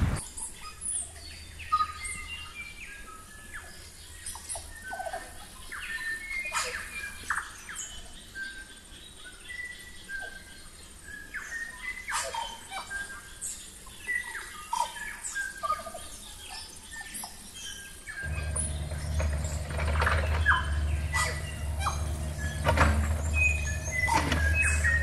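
Small birds chirping and calling. About eighteen seconds in, a steady low engine hum from heavy machinery comes in beneath the birds and keeps going.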